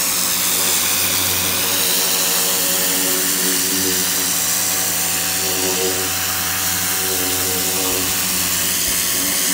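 Hart 2000 PSI electric pressure washer running steadily, its motor and pump humming under the loud hiss of the high-pressure spray from a pistol nozzle hitting a carpet.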